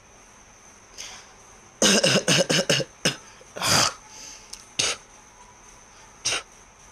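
Man coughing on cigarette smoke that he is not used to: a quick run of about five coughs around two seconds in, then single coughs spaced out toward the end.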